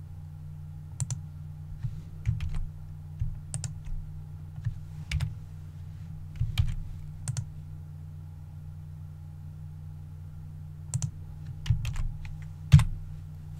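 Computer keyboard keys being pressed in scattered single taps and short pairs, with a pause of a few seconds in the middle, over a steady low hum.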